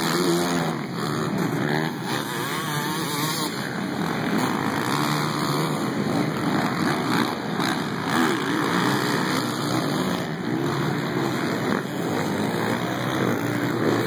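Several motocross dirt bike engines revving and falling off in overlapping, repeated rises and dips of pitch.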